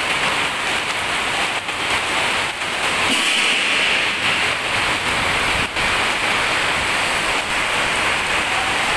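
Heavy rain falling steadily, with a few sharp taps.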